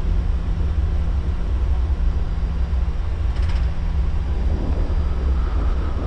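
Airbus A340 flight-deck noise as the airliner rolls slowly after landing: a steady low rumble with a constant hum, and a brief high tick about three and a half seconds in.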